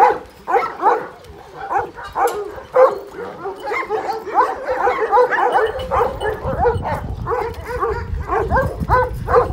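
A large pack of Kangal shepherd dogs barking together, many short calls overlapping in a continuous chorus.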